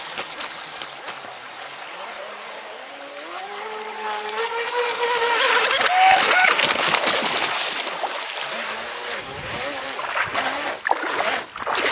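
Brushless electric motor of a 4S LiPo RC catamaran speedboat whining at speed, rising in pitch as the boat accelerates about three to six seconds in. This is followed by a rougher, noisier stretch as the hull skips across the waves.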